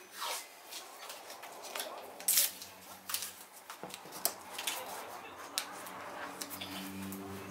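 Close handling noises: an irregular string of clicks, crackles and rustles, the loudest crackle about two seconds in.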